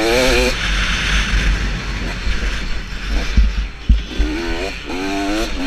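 KTM 250SX single-cylinder two-stroke motocross engine revving up and down under the rider as the bike is ridden through a corner, over a steady low rumble. Two sharp knocks half a second apart come about three and a half seconds in.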